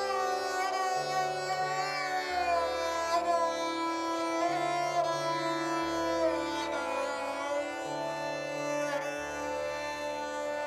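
Background instrumental music: a string-instrument melody with gliding notes over a steady low drone.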